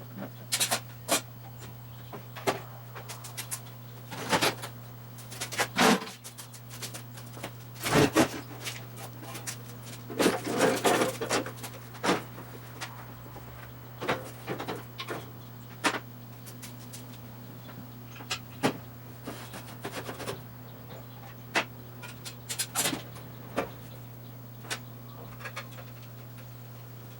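Scattered clunks, knocks and clicks of objects being handled and set down, irregular and of varying loudness, over a steady low hum.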